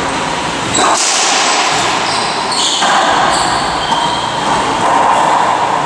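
Racquetball rally: the hollow rubber ball is struck by racquets and smacks off the court walls and floor in sharp, single hits over a steady rushing noise.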